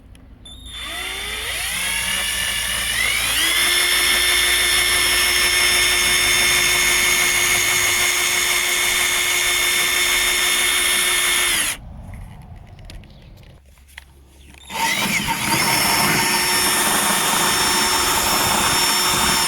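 Power drill boring a hole through a thick steel car bonnet. The motor whines up to speed about a second in and runs steadily, stops for about three seconds, then runs again near the end.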